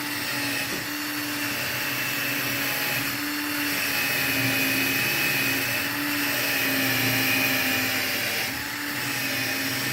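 Electric drill running steadily at speed, spinning a homemade scrap-wood lathe: a steady motor whine that dips slightly about eight and a half seconds in.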